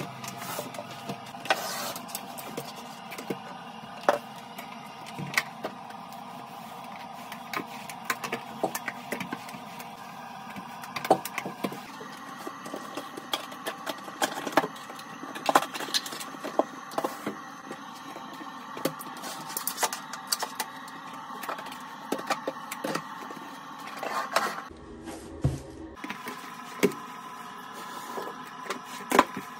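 Cleaning products and tools being handled: plastic bottles and a caddy knocked and set down, and a wipe and mop in use, giving many short clicks and knocks over a steady background sound.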